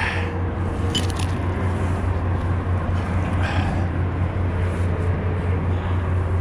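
Steady low engine drone, with a few brief clicks and scrapes on top.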